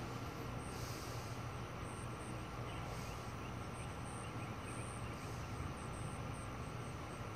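First-generation Lakewood P-237 box fan, its McMillan motor unoiled, coasting down after being switched off, with a faint, steady low hum.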